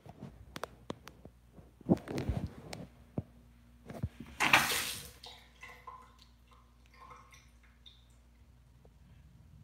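Handling noise from a phone held close: knocks, clicks and rubbing as it is moved and brushed against clothing, with a louder rustle about four and a half seconds in. After that it settles to faint scattered noises.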